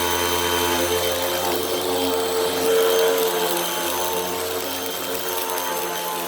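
Hoover WindTunnel High Capacity Pet upright vacuum running steadily, its motor giving a constant whine while it picks up a heavy mess of dirt and cat litter.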